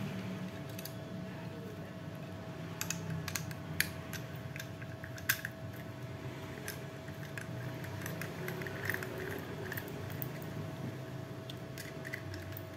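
Small screwdriver turning out the housing screws of a 1.5-inch Bi-LED projector, its tip and the screws clicking lightly and irregularly against the metal, with a few sharper ticks, over a steady low hum.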